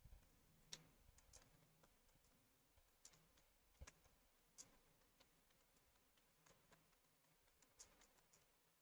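Faint, irregular clicks of computer keyboard keys being typed on.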